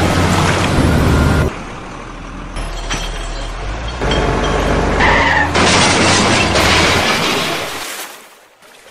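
Dubbed truck engine sound effect, a steady low hum that drops to a quieter level after about a second and a half. About five and a half seconds in, a louder rushing noise comes in and fades away near the end.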